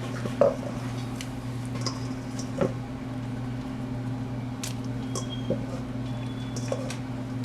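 Potato chunks being dropped gently into a pot of water and broth: scattered soft plops and light clicks, over a steady low hum.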